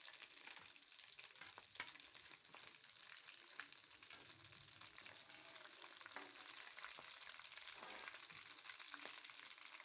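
Faint sizzling of hot oil as potato fritters deep-fry in a kadhai, with a few light clicks of a metal slotted spoon against the pan.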